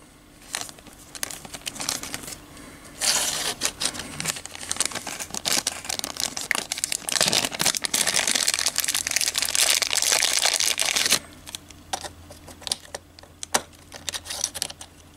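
Plastic packaging crinkling and rustling for several seconds as a miniature is unwrapped, starting about three seconds in. Near the end there are a few light clicks and taps as a small metal figure is set onto a plastic base.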